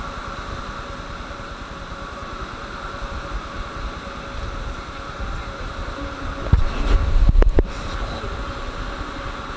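Steady hum of a Moscow Metro 81-775/776 "Moskva-2020" car's ventilation and onboard equipment, heard inside the car. A few loud low knocks come about two-thirds of the way through.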